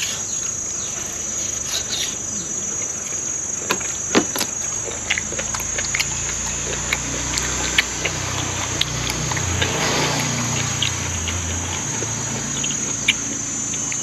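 A steady, high insect chorus trilling without a break, with scattered short clicks and smacks of someone chewing food. A low rumble swells up in the middle and fades out again.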